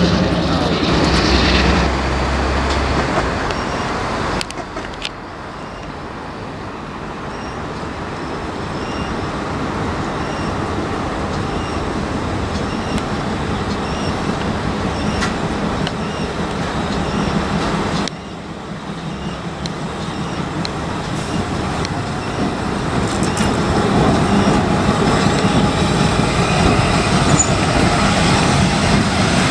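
Trains moving slowly through a station: a diesel locomotive's engine running with a steady low hum at first, then an old electric locomotive hauling passenger coaches, its wheels rumbling on the rails and getting louder as it passes close near the end.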